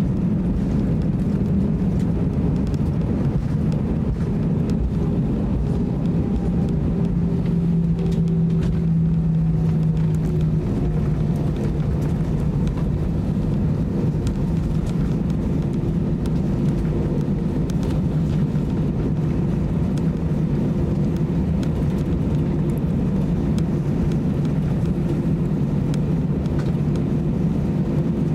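Airbus A320 cabin noise while taxiing after landing: a steady low drone from the idling jet engines and airframe, with a low hum that wavers slightly in pitch.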